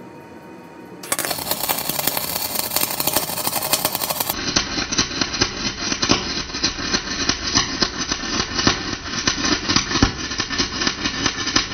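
110-volt MIG welder's arc running a bead on aluminum with 100% argon shielding gas. The arc strikes about a second in and then crackles steadily with dense, rapid popping.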